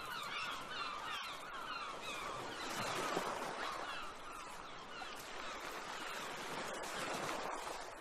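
Many birds calling at once: short, repeated calls overlapping continuously.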